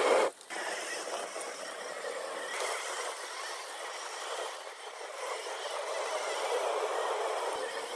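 1/10-scale RC rock racer driving up a dry dirt hill: a steady rush of tyres slipping in loose soil and drivetrain noise, with abrupt changes near the start, about two and a half seconds in, and near the end.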